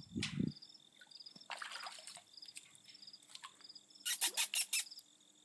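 Insects chirping in a steady repeating pattern, about two chirps a second, with a quick run of about five loud sharp scratchy clicks about four seconds in.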